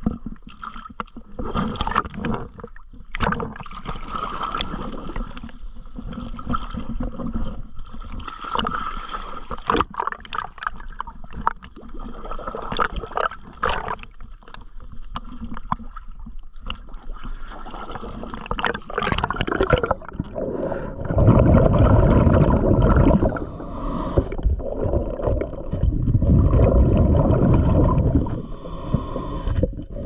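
Water sloshing and gurgling against a camera held at a boat's waterline, with many small splashes and clicks. About two-thirds of the way through, the camera goes under and loud, muffled underwater rumbling comes in two long stretches.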